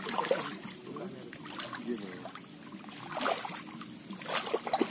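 Legs wading through shallow, muddy ditch water, sloshing and splashing in several short bursts, the loudest near the end.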